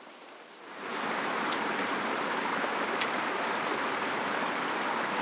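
Small mountain stream running over stones, a steady rushing that comes in about a second in after a quieter stretch of forest air.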